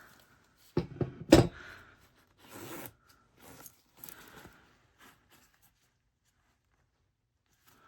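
Sharp metal clicks as needle-nose pliers squeeze a replacement stop onto a metal jacket zipper, the loudest about a second in. Then several short scraping rubs as the zipper and jacket fabric are handled.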